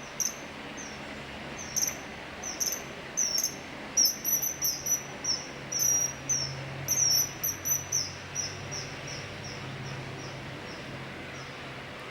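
Common kingfisher calling: a run of short, sharp, high piping calls, several a second, loudest in the middle and growing sparser and fainter toward the end. It calls with a large fish still held in its bill.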